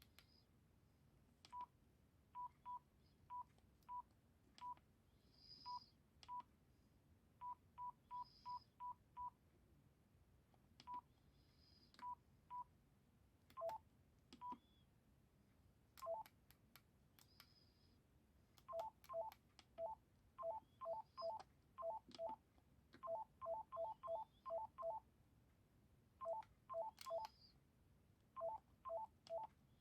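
Panasonic GD67 mobile phone keypad tones as keys are pressed: short single-pitch beeps at irregular intervals, then, from about halfway, quick runs of two-tone dialling beeps, with faint key clicks.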